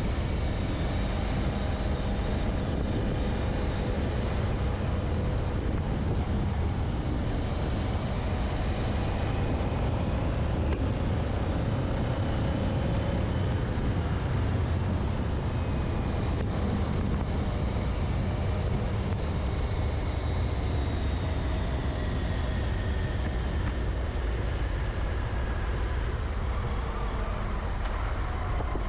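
Honda Africa Twin motorcycle engine running at a steady cruise, its pitch drifting slightly up and down, with wind rushing over the onboard microphone.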